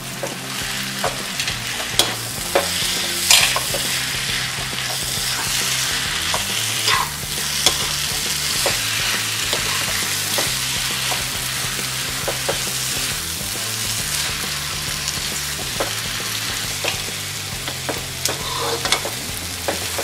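Noodles and vegetables stir-frying in a hot wok: a steady sizzle, with the spatulas scraping and knocking against the pan now and then as the noodles are tossed and mixed.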